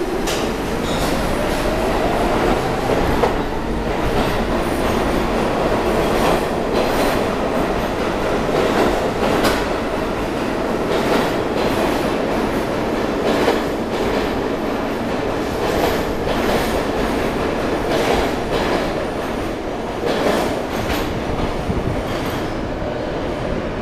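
R46 subway train accelerating out of the station and passing close by: a rising motor whine as it pulls away, then wheels clicking over the rail joints as the cars go by, easing off slightly near the end as the last car leaves.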